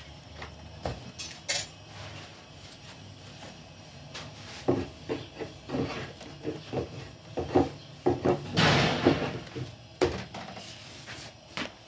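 Pans and metal utensils clattering: a string of knocks and clinks, busiest in the second half, with a longer noisy scrape about nine seconds in.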